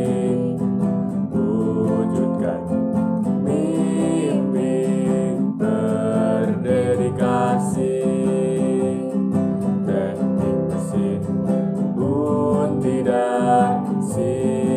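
A song with strummed acoustic guitar and singing.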